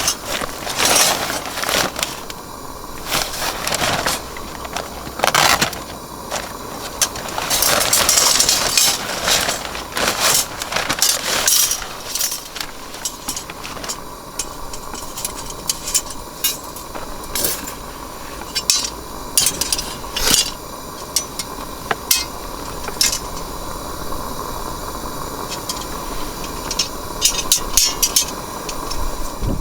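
Irregular clinks and knocks of metal and glass objects being handled, over a continuous hiss.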